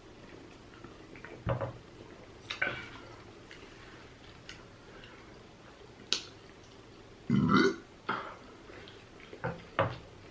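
A person eating on camera, with short mouth and lip-smacking sounds here and there and one long, loud burp about seven seconds in.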